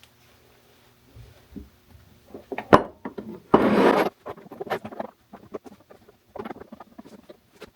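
Galvanized steel pipe fittings and tools being handled on a bench: scattered clicks and knocks, a sharp knock about three seconds in, then a half-second scrape.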